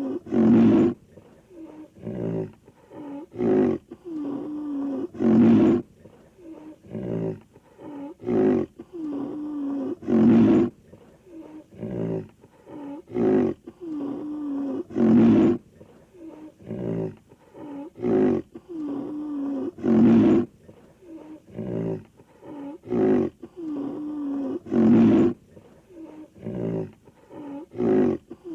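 A cartoon character's vocal sound effects: a string of short grunting calls and a louder roar-like call, the same sequence repeating about every five seconds as a loop.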